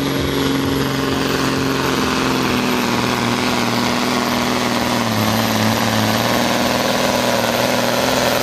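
DAF truck's diesel engine running hard under heavy load as it pulls a weight-transfer sled. A steady deep engine note that sags slightly in pitch about two seconds and about five seconds in, over a dense rushing noise.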